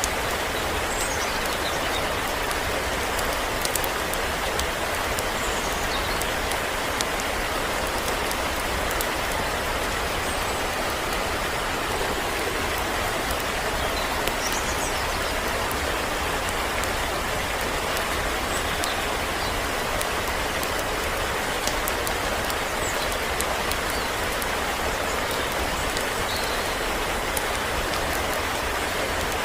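Steady rush of a 10-metre waterfall, water pouring onto rock, unbroken and even throughout. A few faint high chirps show now and then over it.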